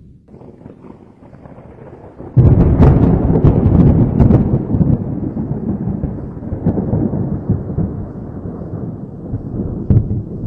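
Thunder: a low rumble, then a sudden loud clap about two and a half seconds in that crackles and rolls away over several seconds, with a shorter sharp crack near the end.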